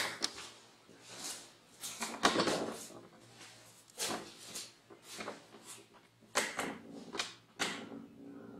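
A string of irregular knocks, clicks and short scrapes, about a dozen spread unevenly over several seconds.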